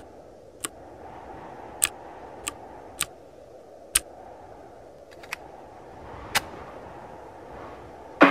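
Low steady hiss with sharp, isolated clicks scattered irregularly over it, about eight in all, like added film-crackle or title sound effects. Just before the end a sudden loud hit comes in as plucked-string music begins.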